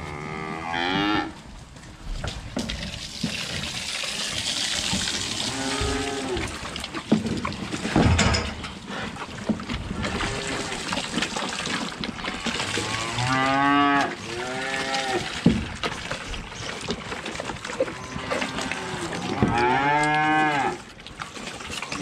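Holstein calves bawling, several drawn-out calls spread through, with two close together about two-thirds of the way in and a loud one near the end. Between the calls there is a rushing hiss and a few sharp knocks.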